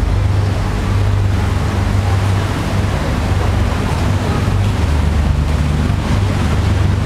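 Tour boat's engine running with a steady low drone, under a rush of water and wind noise.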